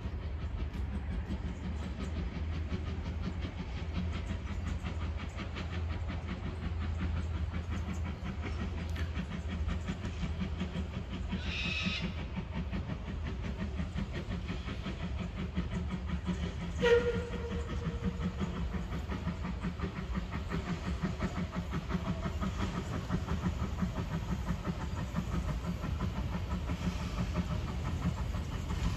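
Narrow-gauge steam locomotive approaching with a steady low rumble, and a short sharp whistle toot about seventeen seconds in, the loudest sound, after a fainter high toot a few seconds earlier.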